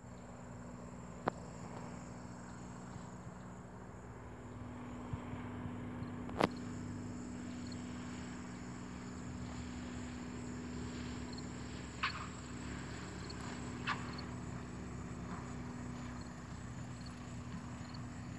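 Diamond DA40 single-engine light aircraft landing and rolling out, its piston engine at low power heard as a steady, distant drone. A few sharp clicks cut through it, the loudest about six seconds in.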